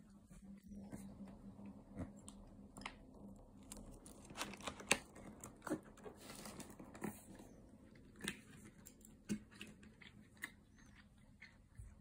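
Faint chewing close to the microphone, with irregular small clicks and taps of wooden chopsticks picking food from a boxed meal tray.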